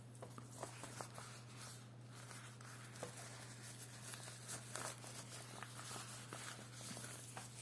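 Faint handling noise from unboxed items: scattered light clicks and soft rustles, over a steady low hum.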